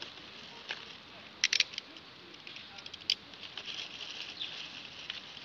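Thin plastic bag and bubble wrap crinkling and rustling as they are handled and cut open with a utility knife. A few sharp clicks come about a second and a half in and again near three seconds.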